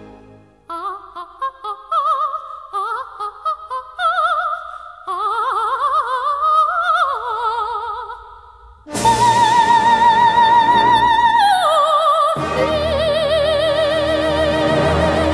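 A soprano sings an unaccompanied closing cadenza of quick vibrato runs. About nine seconds in, a full orchestra enters under her long held high note, which steps down lower a few seconds later.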